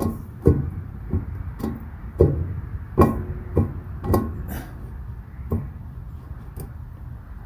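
Irregular metal-on-metal clanks and knocks, some ringing briefly, as hand tools work at a stuck bearing on a combine shaft. About eight or nine hits come at uneven intervals and thin out after about five seconds.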